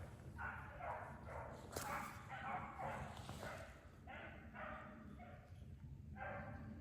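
Beagles baying, a run of short, faint calls about two a second. This is typical of a pack giving tongue as they run a rabbit's scent trail.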